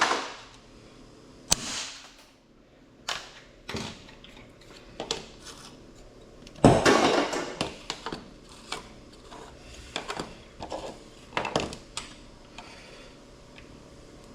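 Plastic keypad casings being busted apart to get at the circuit boards inside: a series of sharp cracks, snaps and clatter at irregular intervals, the loudest about seven seconds in.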